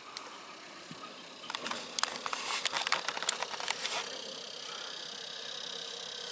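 A quick run of irregular clicking and rattling for about two and a half seconds, from handling fishing gear, then a steady high-pitched hiss.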